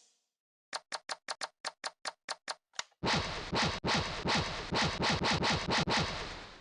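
Toy gun sound effects: about a dozen sharp clicks in quick succession, then a longer rattle of rapid, louder firing pulses with a low rumble underneath.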